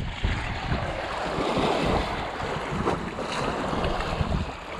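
Wind buffeting the microphone, over river water lapping and splashing against a rocky shore.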